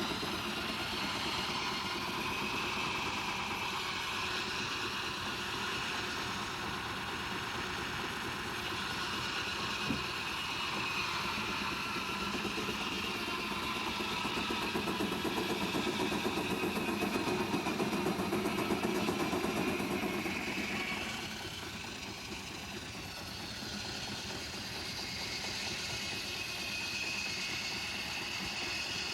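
Steam-engine-driven sawmill running steadily. It grows louder through the middle and drops back about two-thirds of the way through.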